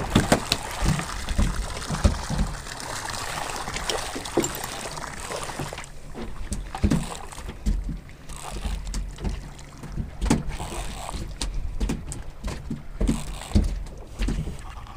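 Water slapping and lapping against the hull of a drifting fishing boat, with wind on the microphone and scattered sharp clicks. It is a steady rush for the first six seconds or so, then quieter, with irregular low thumps of water against the hull.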